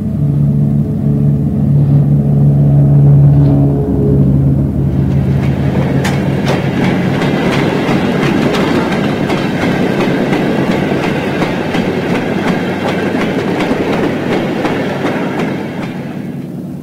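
A diesel locomotive's engine drones past close by. After about five seconds four-wheeled goods wagons follow, their wheels clicking over the rail joints in a steady clock-like ticking that fades a little near the end.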